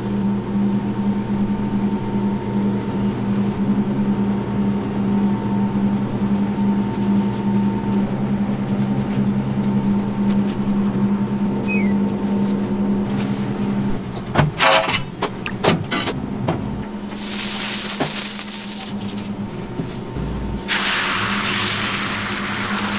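A steady low hum of kitchen equipment, broken by a few sharp knocks about two-thirds of the way in. Near the end, liquid egg on a hot flat-top griddle sets up a steady hissing sizzle.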